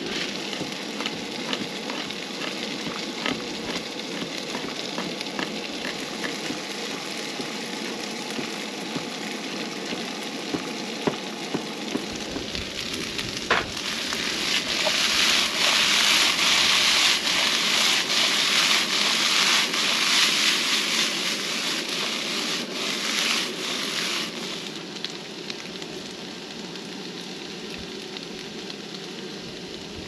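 Diced potatoes sizzling in a frying pan on a two-burner camp stove, with small clicks and scrapes. About halfway through, the sizzle grows much louder for around ten seconds as the pan is lifted and tossed, then settles back to a softer frying hiss.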